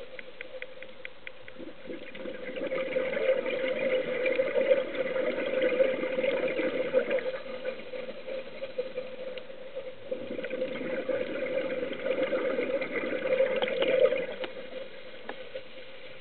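Scuba regulator breathing heard underwater: two long gushes of exhaled bubbles, about three and ten seconds in, with quieter stretches between breaths, over a steady hum.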